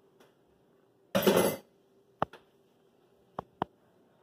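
A loud clatter about a second in, then a metal spoon clinking sharply against a glass mixing bowl four times while it stirs melted butter into graham cracker crumbs.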